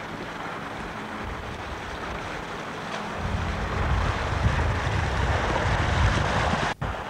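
Bicycle wheels ploughing through deep floodwater, a continuous splashing and hissing of spray that grows louder as the bike comes closer, with wind rumbling on the microphone. It cuts off abruptly near the end.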